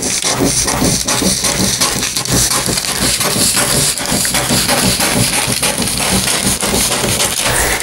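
Scissors cutting through a large sheet of paper along a pattern outline, quick repeated snips several times a second.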